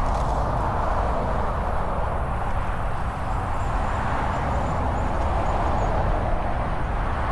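Steady road and tyre noise of a moving car, an even rush over a constant low rumble.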